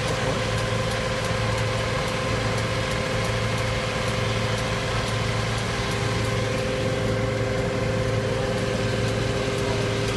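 Fire engine's diesel engine running steadily at idle, a constant hum with a few unchanging tones.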